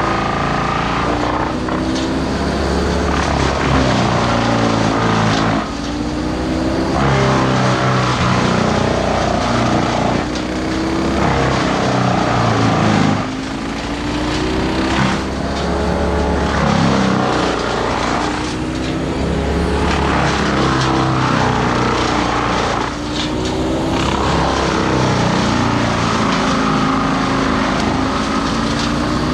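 Gasoline chainsaw engine running at high revs and repeatedly revving up and dropping back, with brief drops in level several times.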